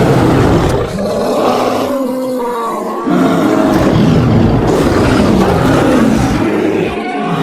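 Grizzly bear sound effect: deep, rough roaring and growling, easing into a softer, pitched moan about two seconds in before a loud roar resumes a second later.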